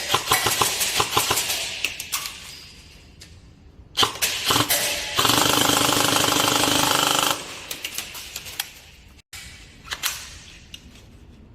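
Airsoft guns firing: a rapid string of shots that fades out, then a sharp single shot and a few more, a continuous full-auto burst of about two seconds, and scattered single shots near the end.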